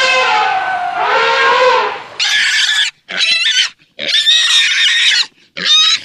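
Animal-call sound effects: an elephant trumpeting, its pitch sliding down over the first two seconds, followed by four short, harsh, high squealing calls with gaps between them.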